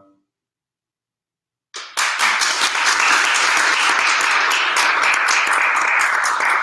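The last of a piano chord fades out at the very start. After a short silence, about two seconds in, an audience bursts into steady applause that keeps going.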